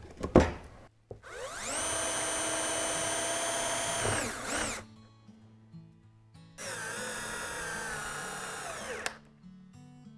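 Cordless drill run twice, boring two holes through a thin solid-timber lamination into the jig board. Each time it spins up, holds a steady whine for a few seconds, then winds down.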